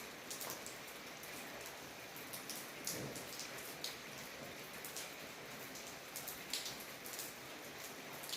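Heavy rain falling steadily, with irregular sharp taps of individual drops striking a nearby surface.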